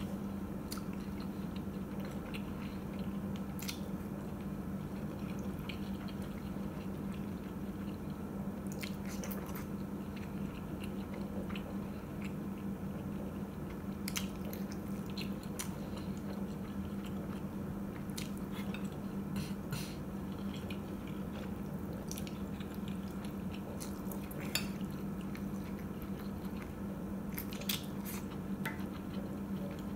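Close-miked chewing and biting of soft oden pieces (fried tofu, fish cake, greens in broth), with wet mouth sounds and scattered sharp clicks of chopsticks against a glass bowl, over a steady low hum.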